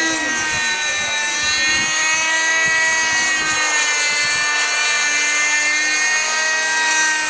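G-Smart 18-size nitro RC helicopter in flight: its glow engine and rotors run with a steady, many-toned whine whose pitch rises and falls slightly. The owner suspects the engine is getting too little nitro here.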